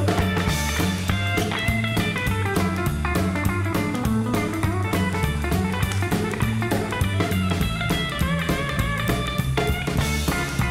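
Live rockabilly band playing an instrumental passage: an electric guitar playing lead runs over a steady drum beat and bass.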